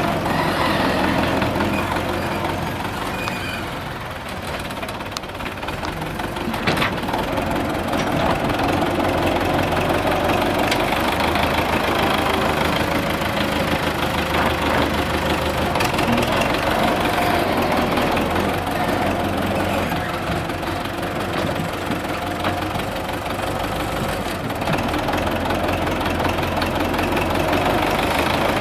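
Front-loader wheeled tractor's diesel engine running steadily while its bucket works the dirt of a road surface. The engine dips a little about four to six seconds in, and there is a single sharp knock near seven seconds.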